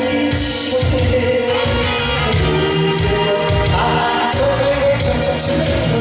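Korean trot song performed live: a male singer on a microphone over an amplified backing track with a steady, pulsing beat.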